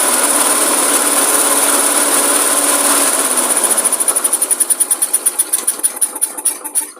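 Briggs & Stratton 500 series engine on a Masport rotary lawn mower, running steadily and then shut off: about three seconds in it begins to wind down, its beats coming slower and slower until it stops near the end.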